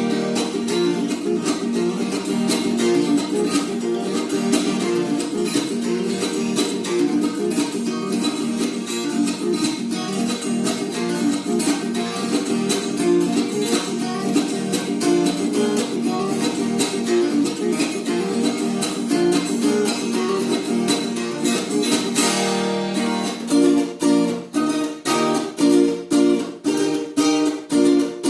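Viola caipira, the Brazilian ten-string folk guitar, played solo with a steady run of plucked notes; from about 23 seconds in the playing turns to separate strummed strokes, roughly two a second.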